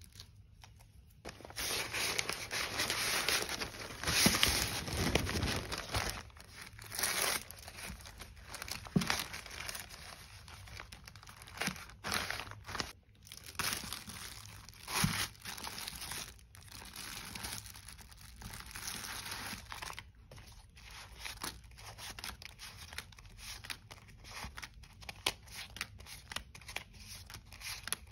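Clear plastic packaging crinkling and rustling as hands unwrap and handle a clear plastic ring binder and a stack of frosted plastic zipper pouches. It starts about a second and a half in, with many sharp crackles and louder bursts.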